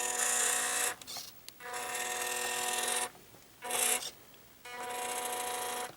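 The motor and geared drivetrain of a 1/18 FMS Toyota FJ Cruiser RC crawler whining in four bursts of throttle, each stopping abruptly; a noisy drivetrain.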